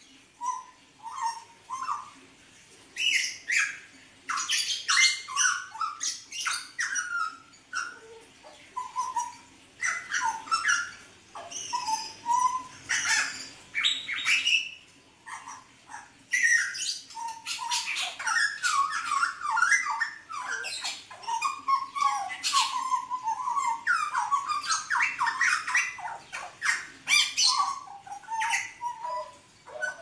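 Caged hooded butcherbird (jagal Papua blorok) singing a long, varied song: short whistled notes mixed with harsh, scratchy squawks and rapid chatter, in phrases separated by brief pauses.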